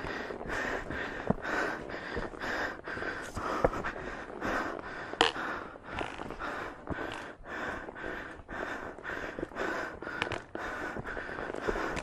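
A hiker's heavy panting, close to the microphone, in a quick even rhythm of about two breaths a second: he is out of breath from climbing uphill under a heavy load. A few sharp clicks come through, the loudest about five seconds in.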